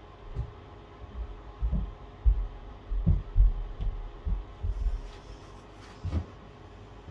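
Irregular dull low thumps, about a dozen spread over a few seconds: a hand and paint marker knocking against the table while drawing on a resin keyring letter. A brief rustle about five seconds in.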